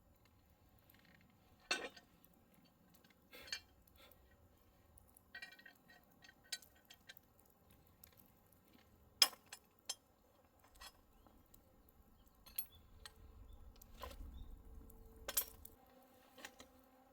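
Scattered clinks and knocks of metal cookware and utensils being handled, a dozen or so separate short strikes, a few of them ringing briefly.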